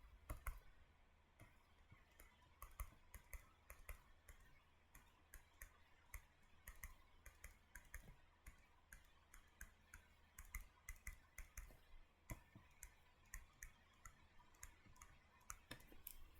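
Faint, irregular taps and clicks from a stylus writing on a tablet screen, a few every second, over low room hush.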